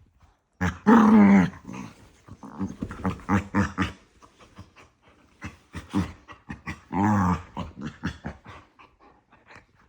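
Two small dogs play-fighting nose-to-nose, growling and yapping at each other. A loud growling bark comes about a second in and again around seven seconds, with quick short yips between, tailing off near the end.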